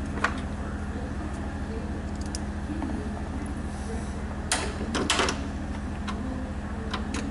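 Bolts being started by hand into a car door's latch assembly: a few sharp metal clicks and knocks, clustered about four and a half to five seconds in, over a steady low hum.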